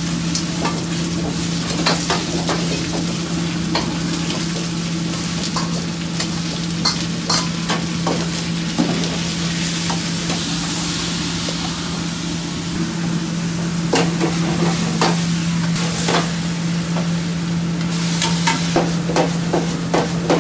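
Stir-frying in a wok over a high-flame restaurant wok burner: the metal ladle scrapes and clanks against the wok again and again amid sizzling, over a steady low hum. The sizzle swells about ten seconds in.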